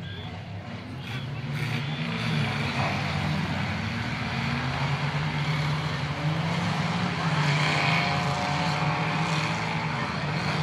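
Several stock cars' engines running hard as they race round a dirt track. The sound swells about two seconds in as the pack comes closer.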